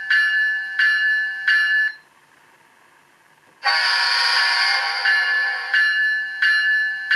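Digital locomotive bell from an ESU LokSound decoder (GE GEVO sound file) in an HO-scale ES44AC, played through the model's small speaker, striking about once every 0.7 s. It stops about 2 s in. About a second and a half later a horn blast comes in and the automatic e-bell starts ringing with it, as a single bell with no doubled, overlapping bell strikes.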